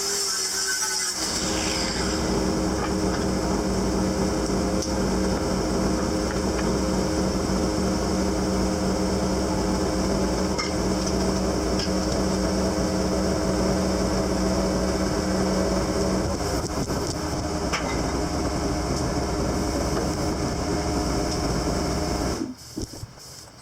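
Sped-up power-tool metalwork on a steel sprayer wheel rim: a steady, dense machine noise with several steady tones in it, cutting off suddenly near the end.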